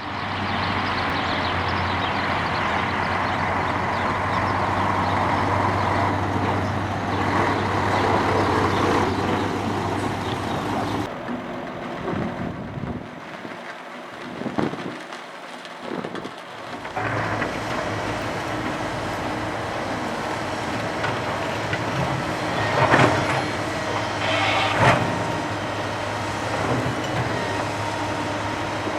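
Heavy construction machinery running, a steady engine drone of excavators or bulldozers at work, with a sudden change about a third of the way in and a quieter stretch before the drone returns. Two sharp metallic clanks stand out near the end.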